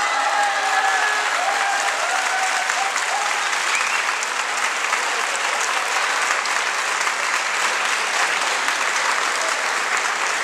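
Audience applauding steadily, with a few voices shouting over it in the first few seconds.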